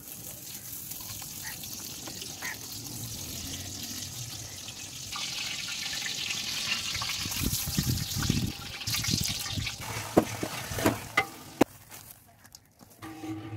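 Cooking oil poured from plastic pouches into a large metal cooking pot, a steady pouring sound that grows louder about five seconds in. A few sharp knocks follow near the end.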